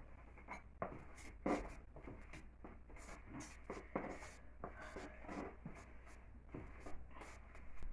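Hands mixing dry puff puff ingredients (yeast and sugar) in a bowl: faint, irregular scratching and rustling.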